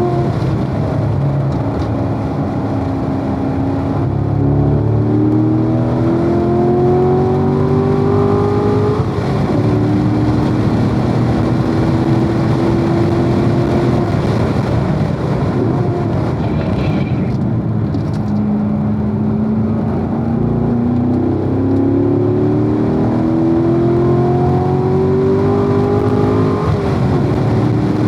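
Corvette V8 engine at full throttle on a racetrack, pitch climbing through the revs and dropping sharply at a shift or lift about nine seconds in, then climbing again and dropping once more near the end. Steady tyre and wind roar sits underneath, as heard from inside the car.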